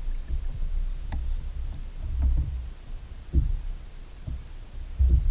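Wind buffeting the microphone in a low rumble, with a handful of dull thumps, the loudest near the end.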